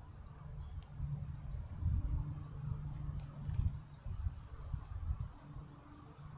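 An insect chirping in short, high-pitched pulses, about three a second, over an uneven low rumble.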